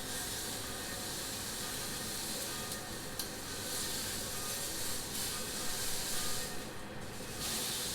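Fillet steak sizzling steadily in a hot frying pan while it is held on its edge to sear the sides, with a couple of faint clicks about three seconds in.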